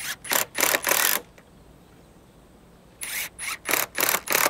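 A drill driving screws through a steel gate hinge into a timber fence post, run in short bursts: about four near the start, a pause of nearly two seconds, then another quick run of bursts near the end.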